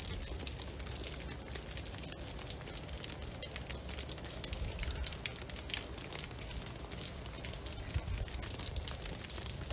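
Ice crackling and ticking: a dense, steady run of tiny irregular clicks over a soft hiss, with a low rumble underneath.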